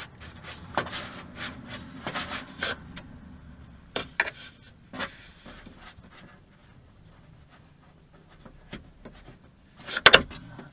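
Handling noise from the camera mounted inside the car door: rubbing and scraping with scattered clicks for the first few seconds, then quieter, with a loud clatter of knocks about ten seconds in.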